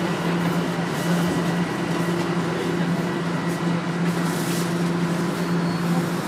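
Cabin noise inside a Toronto Rocket subway car slowing into a station: a steady low hum over running rumble, with a brief faint high tone near the end as it comes to a stop.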